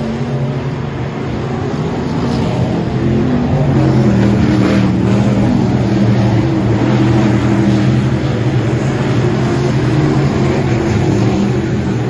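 Dirt-track race car engines running hard as a field of cars laps the oval, several engines heard at once. They get louder about three to four seconds in.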